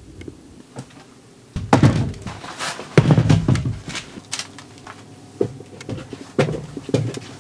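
Quiet for about a second and a half, then a run of wooden knocks and thumps as long timber rafters are carried and bumped against the framing.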